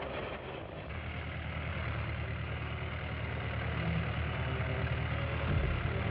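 Biplane engine running steadily at low speed, a low even hum that sets in about a second in.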